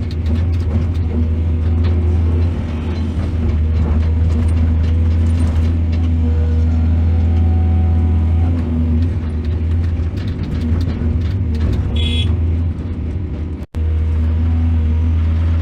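Heavy diesel engine of mining machinery running steadily under load, with a deep, constant hum. A brief high-pitched sound comes about twelve seconds in, and the sound cuts out for an instant shortly after.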